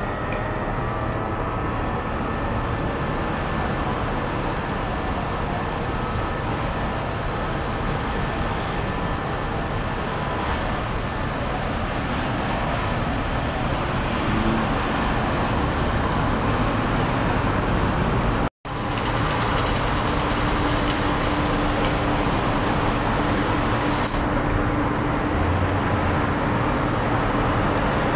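Steady roar of road traffic and running vehicle engines, broken once by a momentary dropout about two-thirds of the way through.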